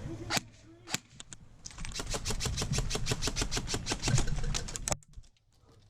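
Airsoft electric rifle firing: two single shots, then a long full-auto burst of rapid, evenly spaced clicks lasting about three seconds, which stops abruptly.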